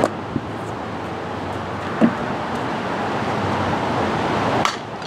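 Steady wind rumble on the microphone, with one short thump about two seconds in; the noise level drops sharply near the end.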